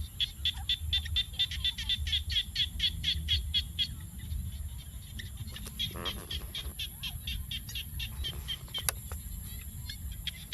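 A rapid, even train of high-pitched chirping calls from an animal in the fields, about five a second, fading for a couple of seconds in the middle before picking up again, over a low steady rumble. A single sharp click comes near the end.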